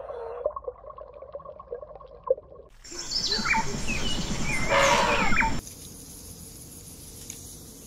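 Birds chirping in short hooked calls over rustling outdoor noise for about three seconds in the middle. Before them a faint steady hum with a few soft clicks; after them a faint steady high whine.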